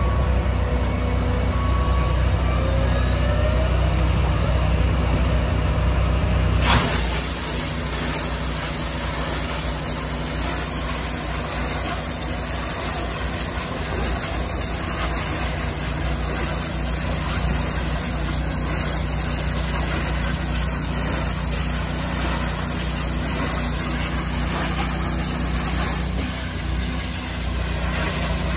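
Hot-water bin-washing trailer's engine and pump running with a steady hum. About seven seconds in, the high-pressure hot-water spray inside the wash chamber comes on with a sudden, steady hiss that continues.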